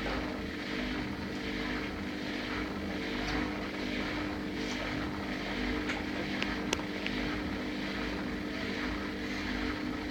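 Steady mechanical hum with a held low tone, with a few faint clicks about six to seven seconds in.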